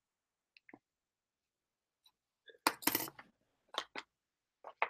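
A small package being handled and prised open by hand: a short crackling burst about three seconds in, then a few scattered light clicks.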